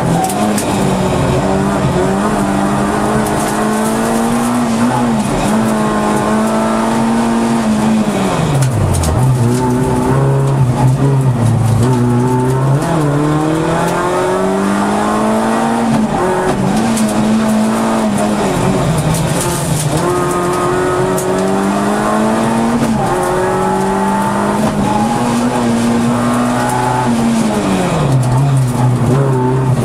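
Peugeot 106 Rallye's four-cylinder engine, heard from inside the cabin, revving hard under full throttle and climbing in pitch again and again, with drops at each upshift. About a third of the way in and again near the end the revs fall steeply as the car brakes and downshifts.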